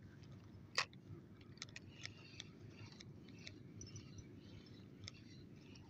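Spinning reel being wound in to retrieve a cast lure: a sharp click about a second in, then faint, irregular ticking from the reel as the handle is turned.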